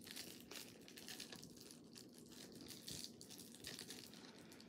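Faint, scattered rustling and crinkling, close to near silence: small handling noises of something being moved against fabric or packaging.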